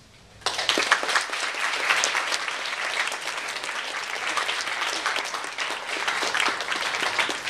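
Audience applauding: dense clapping from many hands that starts suddenly about half a second in and keeps going steadily.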